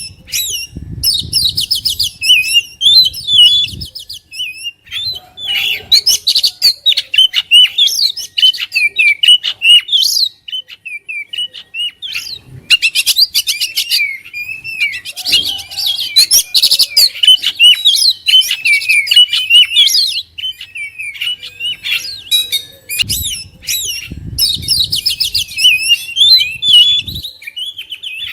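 Oriental magpie-robin (kacer) singing hard and almost without pause: a rich, fast-changing string of high whistles, trills and chatter. A low rumbling noise lies under the song near the start and again near the end.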